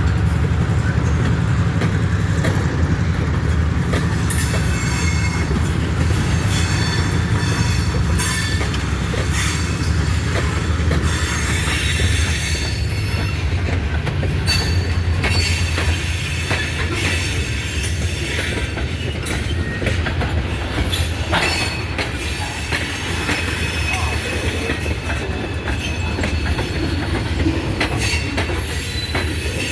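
EMD MP15 diesel switcher locomotive running with a steady low drone while rail cars move. Sharp clicks and high squeals come from the wheels on the rails.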